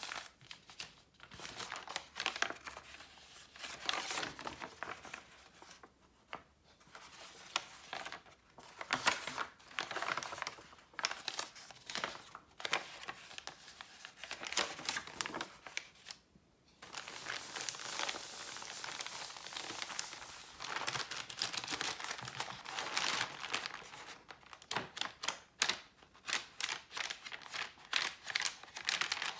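Sheets of dyed paper being handled, crinkling and rustling in irregular bursts, with a short pause midway and a denser, steadier rustle just after it.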